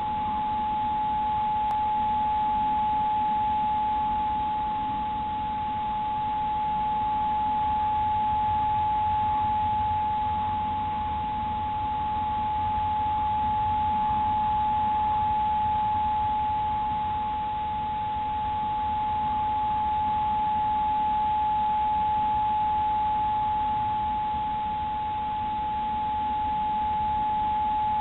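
A steady high-pitched electronic whine held at one pitch, with a fainter lower tone and a constant hiss beneath it. This is self-noise from a trail camera's audio circuitry, and no sound from the deer is picked out.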